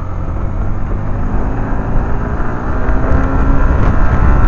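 Motorcycle engine pulling under acceleration while riding, its pitch slowly rising and getting louder toward the end, over a heavy low rumble of wind on the microphone.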